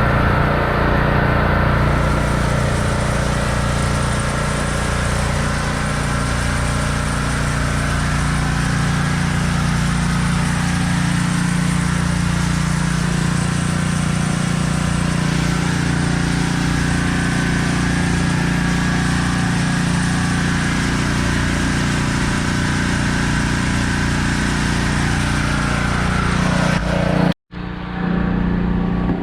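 An engine running steadily at a constant speed, with a brief sudden break near the end.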